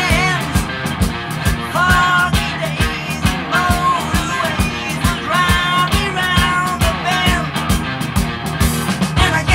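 Recorded rock song: drums keep a steady beat under held, sung or guitar melody lines.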